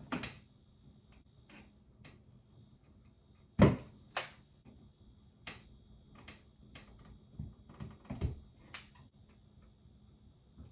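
Irregular clicks and knocks of hand tools and wires being worked into a 50 amp flush-mount 240 V outlet box, as the conductors are fitted to the outlet's terminals; the loudest knock comes about three and a half seconds in, with a quicker cluster of taps near the end.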